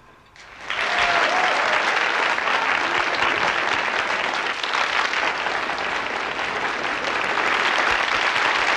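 Theatre audience applauding: a few scattered claps, then within the first second a full, steady round of applause.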